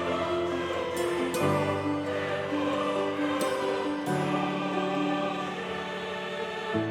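Background music: sustained, choir-like chords, changing to a new chord about every two to three seconds.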